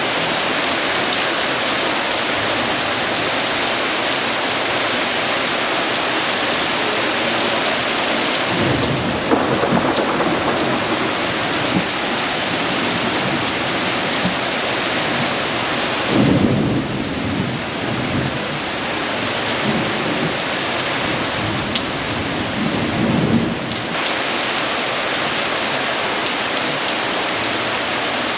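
Thunderstorm: steady heavy rain, with rolling thunder swelling about a third of the way in and again twice in the second half.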